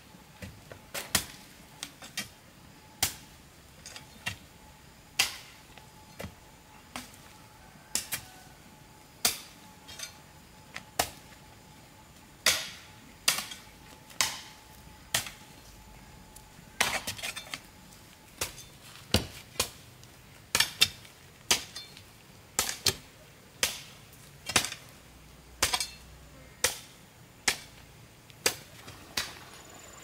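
Repeated sharp knocks of a hard object striking, irregular, about one to two a second.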